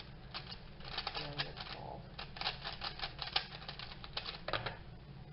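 WeiLong V1 3x3 speedcube being turned rapidly in a speedsolve: fast, irregular plastic clacking of the layers, which stops near the end as the solve finishes.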